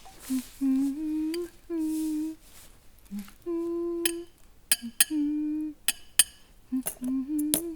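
A voice humming a simple tune in short held notes, broken by a few sharp clicks between the notes.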